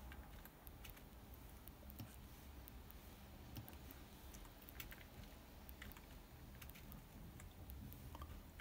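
Faint, irregular computer-keyboard clicks over a low steady hum.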